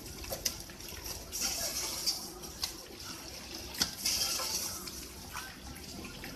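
Water spraying and splashing from an FGB-180 automatic fish filleting machine as it runs, swelling and easing in surges, with a few sharp knocks, the loudest a little under four seconds in.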